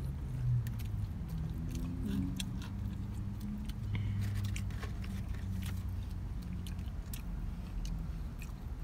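Close-up chewing and biting sounds of people eating fast-food burgers, with scattered small mouth clicks over a low steady hum.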